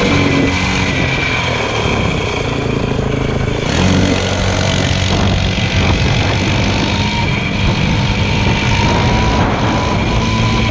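Motorcycle engine running steadily and loudly, its engine note shifting about four seconds in, with a steady high whine over it.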